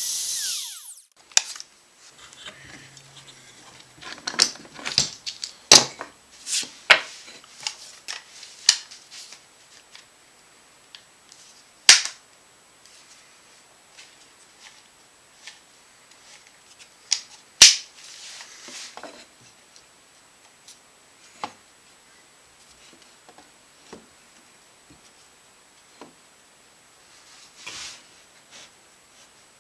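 A compact trim router winding down with a falling whine in the first second after it is switched off. This is followed by scattered sharp clicks and knocks as the router's base and depth setting are handled and the tool is set back down on the wooden guitar body.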